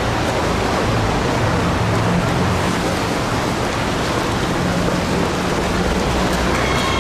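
Steady rain-like hiss of a mass of marathon runners passing on the street, many footsteps and crowd noise blended together. A pitched call with overtones starts near the end.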